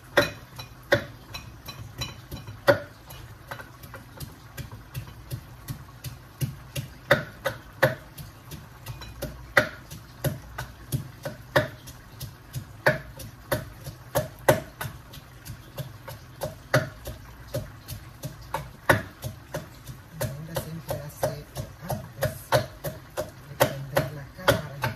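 Repeated sharp knocks of hand food preparation at a kitchen counter, irregular at two or three a second, some much louder than others.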